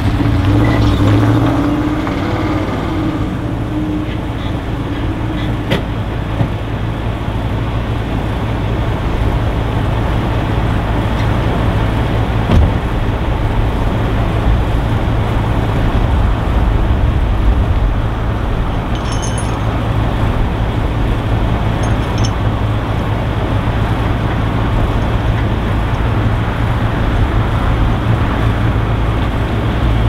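A vehicle engine running steadily at idle, with a humming tone that fades out in the first few seconds.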